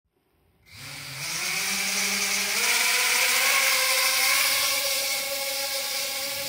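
Mini quadcopter drone's motors and propellers spinning up from rest for take-off, starting less than a second in. Its whine steps up in pitch twice, then holds as a steady buzzing hum.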